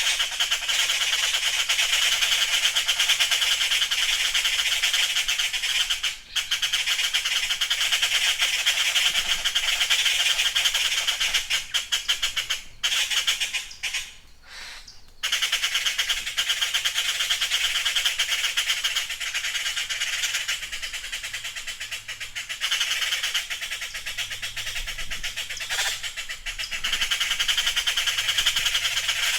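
Blue jays calling: a dense run of harsh, rapidly repeated calls, broken by brief pauses about six seconds in and again around twelve to fifteen seconds in.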